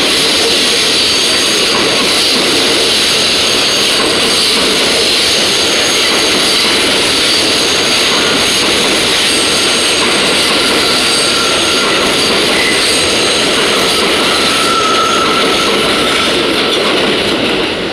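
Subway train passing overhead on a steel elevated structure: a loud, steady rumble with thin, high squealing tones from the wheels. It eases off near the end.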